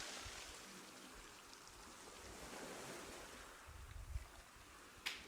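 A faint, even wash of hissing noise like surf, fading away over the first few seconds. A low rumble comes about four seconds in, and the first few sharp claps start just before the end.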